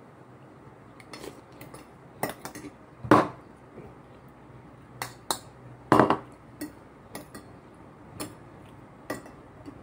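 Spoon and fork clinking and scraping on a ceramic plate and bowl during a meal, a scatter of sharp clinks with two louder knocks about three and six seconds in.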